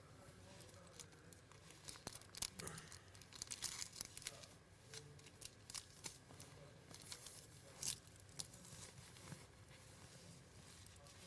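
Faint rustling and crinkling as a black bag is handled in the lap, with scattered sharper crackles, the loudest about two and a half seconds in and again near eight seconds.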